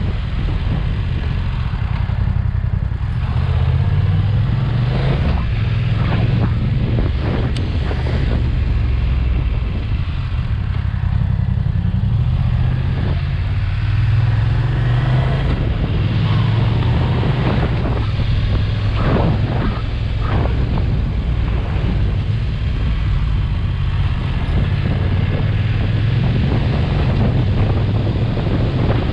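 BMW F900XR's parallel-twin engine running while riding, its low note rising and falling with the throttle, under heavy wind rush on the microphone.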